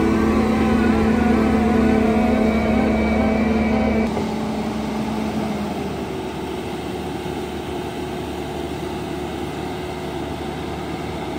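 Skid-steer engine running hard, with a universal rotor head grinding thick grass and soil; the pitch wavers up and down under load. About four seconds in the sound drops to a quieter, rougher machine noise with less of a clear engine pitch.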